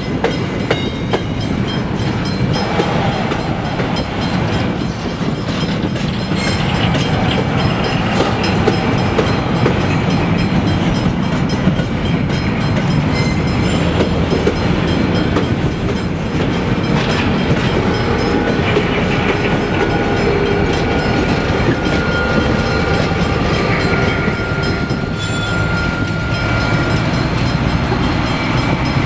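Freight train of empty container flat wagons rolling past close by: a loud, steady clatter of steel wheels over the rail joints. A thin, high wheel squeal rings faintly through it in the later part.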